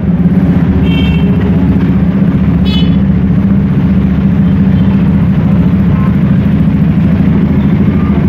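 Steady low rumble of busy street traffic, with two short horn toots about one and three seconds in.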